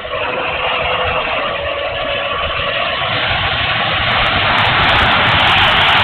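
Electric ducted fan of an E-flite F-16 Thunderbirds 70mm model jet running in flight, mixed with wind rushing over the onboard camera's microphone. The noise grows louder just after the start and again about four and a half seconds in, with crackling from wind buffeting near the end.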